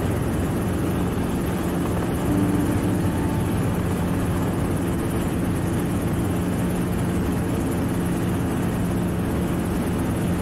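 Helicopter running steadily: a constant engine and rotor drone with a steady low hum.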